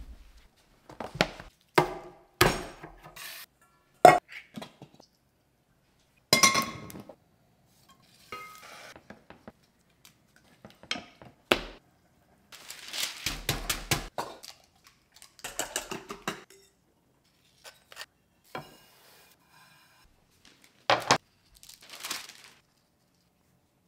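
Kitchen prep sounds for breading chicken: scattered knocks and clinks of bowls and utensils, a knife cutting on a plastic chopping board, and baking paper rustling, each a short separate sound with pauses between.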